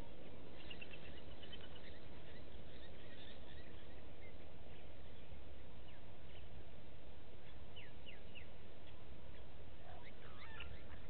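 Wild birds calling in short, high chirps, with a quick run of repeated notes about a second in and a cluster of calls near the end, over steady low background noise.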